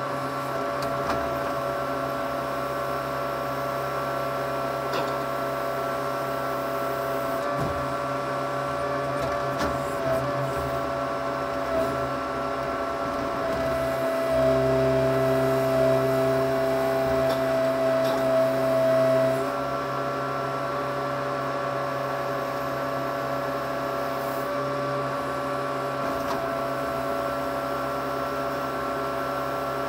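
Case 580C backhoe's engine running steadily with a whine, heard from inside the cab while the backhoe boom is worked. Past the middle it grows louder for about five seconds, then settles back.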